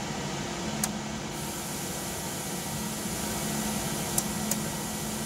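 Steady electrical hum and hiss from a control cabinet, with three short sharp clicks, one about a second in and two close together near the end. The clicks are typical of a switch being turned to trigger the inverter's S1 run input.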